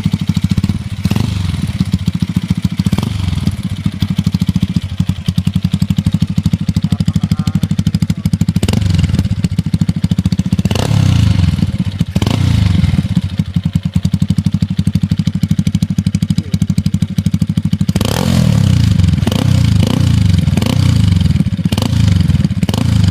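Motorcycle engine running through an aftermarket Daeng exhaust pipe with a big elbow header, giving a fast, pulsing idle. Quick throttle blips come about a second in and at three seconds, followed by bursts of revving around nine to twelve seconds and again from about eighteen to twenty-two seconds.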